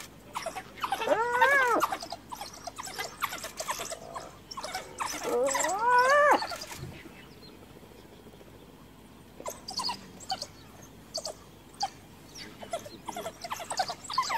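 A cornered spotted hyena giving two drawn-out squealing calls, each rising then falling in pitch, about a second in and again around five seconds in: distress calls of a hyena surrounded by African wild dogs. Between them come many short, high chirps of the kind wild dogs make.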